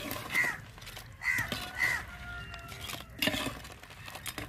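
A crow cawing: three calls in the first two seconds, then another a little after three seconds.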